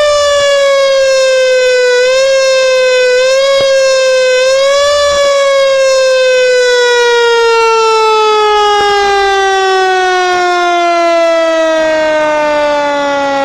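Fire truck siren wailing loudly. Its pitch is pushed up briefly a few times in the first five seconds, then falls slowly and steadily for the rest of the time.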